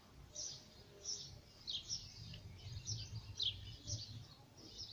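Small birds chirping over and over, short high chirps about every half second, with a faint low rumble underneath in the middle.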